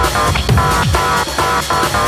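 Background electronic dance music with a fast, steady drum beat and deep bass hits that drop in pitch about once a second.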